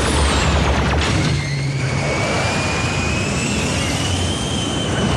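Sound effects of a sci-fi aircraft's jet engines flying low: a steady rushing engine noise over a low rumble, with a high whine falling in the first second and then an engine whine rising slowly through the rest.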